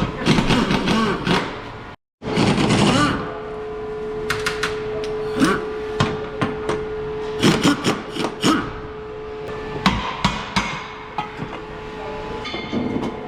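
Irregular hammer blows and metallic knocks from work on a car's underside, in clusters, over a steady hum.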